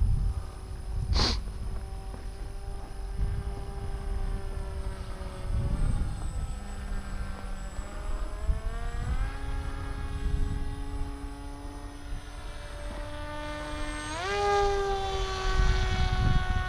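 Brushless electric motor and propeller of a heavy FPV flying wing whining in flight, the pitch following the throttle: it dips about six seconds in, climbs a few seconds later, jumps sharply near the end, then eases off. A short sharp click sounds about a second in.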